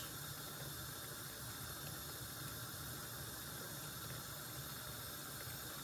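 Dye bath of fibre in a steel roasting tray heating over a gas hob, giving a faint, steady simmering hiss with the heat turned down low.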